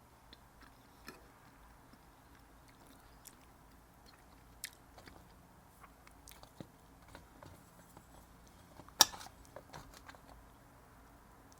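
A person chewing and biting food close to the microphone: scattered soft crunches and mouth clicks, with one sharper, louder crunch about nine seconds in.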